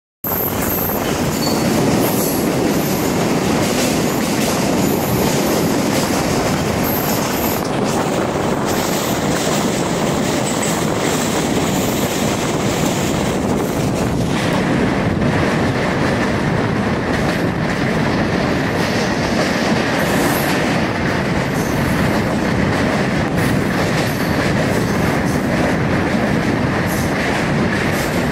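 Passenger train's wheels running on the rails as it crosses a steel truss bridge, a loud steady noise with no break. A faint, high, steady tone joins about halfway through.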